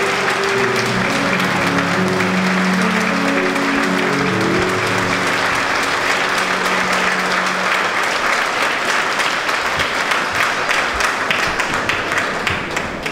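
Audience applauding, with music playing underneath for the first eight seconds or so. Toward the end the applause thins to scattered individual claps and dies away.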